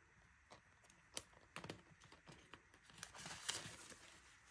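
Paper banknotes being handled: light clicks and crinkles from a clear plastic binder pocket, then a stack of bills rustling as they are pulled out and fanned for counting, loudest about three and a half seconds in.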